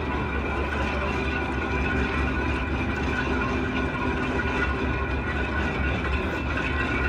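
Locomotive turning on a rail-yard turntable: a steady mechanical hum with a few high, even tones over it.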